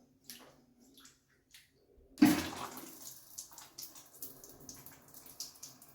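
Handling noise from a phone being set down: a few faint clicks, then a loud knock about two seconds in, followed by scattered clicks and scraping.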